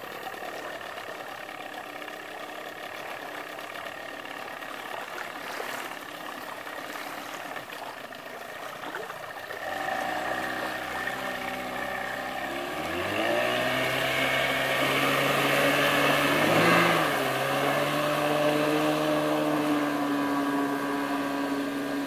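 1999 Johnson 25 hp tiller outboard motor idling, then opened up: its pitch climbs steeply about thirteen seconds in and holds high and steady at full throttle as the boat gets up on plane, with a brief waver a few seconds later.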